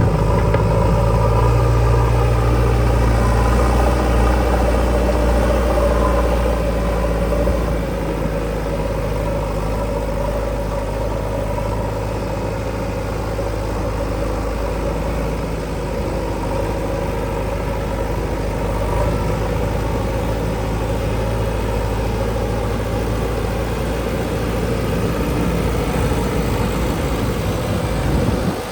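Heavy diesel engine running steadily, a little louder for the first seven seconds or so, then settling to an even level.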